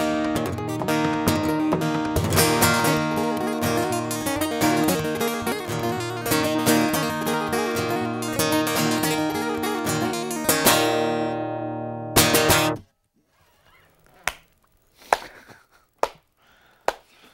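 Solo acoustic guitar played fast with dense picking and strumming, closing on a last loud strum that is cut off sharply about two-thirds of the way in. After it come a few sharp taps about a second apart.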